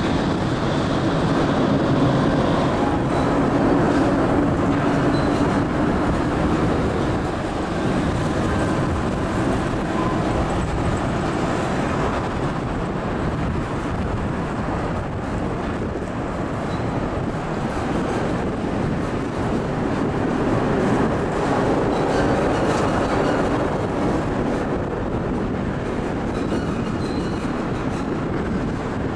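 A Scherzer rolling lift railroad bascule bridge lowering its steel span, running with a steady metallic rumble as the span rolls down on its track.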